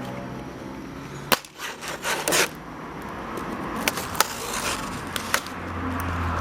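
Toy train packaging being handled during unboxing: a scattering of sharp clicks and knocks with some scraping, over a steady low hum that grows near the end.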